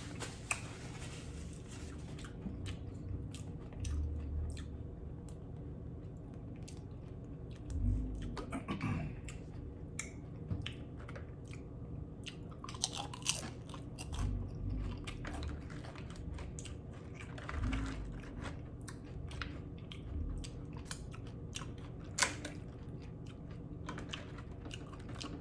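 Close-miked chewing of loaded steak nachos: irregular crisp crunches of tortilla chips mixed with softer, wet chewing.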